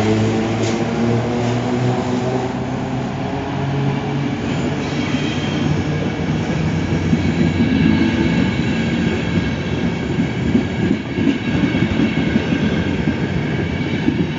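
Passenger coaches of a departing Intercity train rolling past, with their wheels clattering over the rails more and more densely as the train gathers speed, and a thin high squeal from the wheels. In the first few seconds the hum of the locomotive that has just passed falls in pitch and fades.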